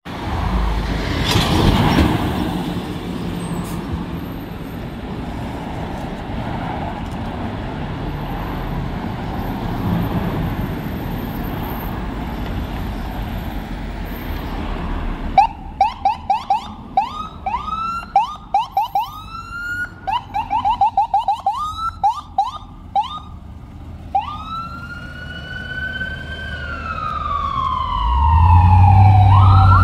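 Ambulance electronic siren on a 2018 International DuraStar 4300 / Horton ambulance. After steady street noise, it gives about eight seconds of short rising chirps in quick succession, then a long wail that rises and slowly falls. A loud low drone joins near the end.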